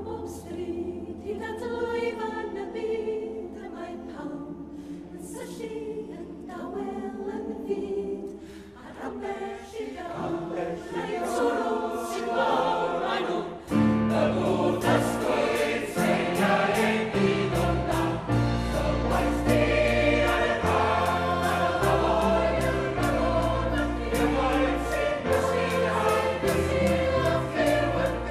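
A mixed choir singing a Welsh song with accompaniment. About halfway through, the music swells fuller and louder as a deep bass comes in.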